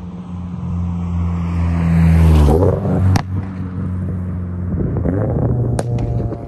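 2022 Toyota GR86's flat-four engine heard through an aftermarket cat-back exhaust. It grows louder for about two seconds to a peak, then drops in pitch, with a sharp crack about three seconds in, and builds again near the end.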